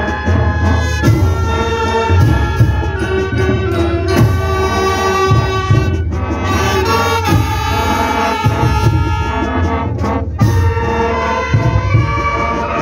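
Large school brass band playing a march: trumpets, saxophones and sousaphone over marching drums, with a steady beat of low drum thumps and a few sharp crashes.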